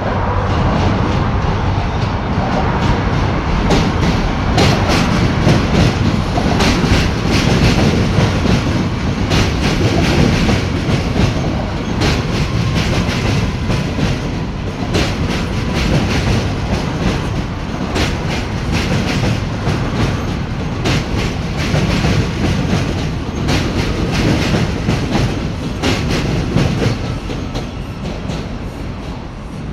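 New York City subway train running over the Williamsburg Bridge tracks: a steady rumble with a rapid, irregular clatter of wheels over rail joints, easing off a little near the end.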